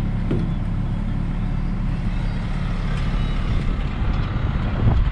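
Bobcat T66 compact track loader's diesel engine running steadily.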